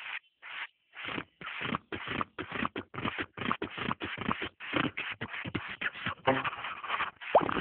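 Cartoon sound effects of two larvae sucking and blowing hard through one drinking straw: a fast run of short breathy puffs and slurps, about three or four a second, getting louder near the end.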